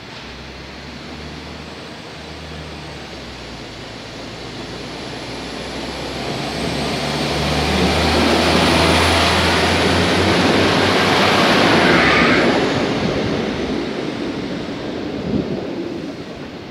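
SA137 diesel multiple unit pulling away from the station: its diesel engine runs under load and grows louder as the train passes close by, with a thin high whine over it, then fades as it moves off.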